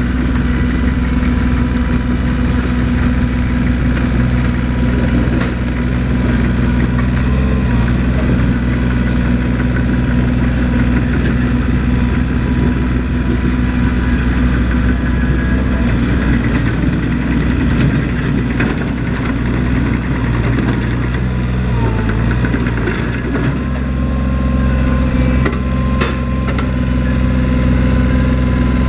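Diesel engine of a TCM TB025 backhoe running steadily, its note shifting a few times, most clearly about three-quarters of the way through. A few sharp knocks sound near the end.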